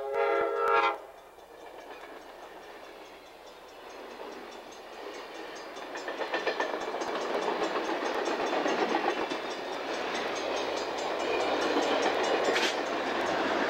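Amtrak passenger train's air horn sounding, cutting off about a second in; then the train rolls past close by, the noise of its wheels on the rails building and staying loud as the cars go by.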